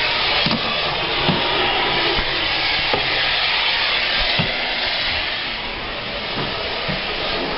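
Central vacuum cleaner system running: a steady rushing hiss of air with a few light low knocks.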